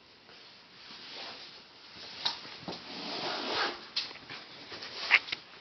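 Alaskan Malamute puppy scuffling at play: a swelling rustle with a few sharp clicks and knocks, the loudest near the end.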